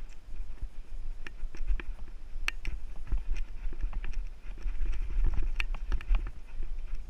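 Mountain bike rattling and clicking over roots and rocks on singletrack: many irregular sharp clicks and knocks, the loudest about two and a half seconds in and again between five and a half and six seconds, over a low rumble.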